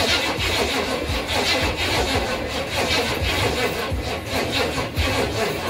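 Chevrolet C10 pickup's carbureted engine cranking on the starter without firing: it turns over steadily but does not catch.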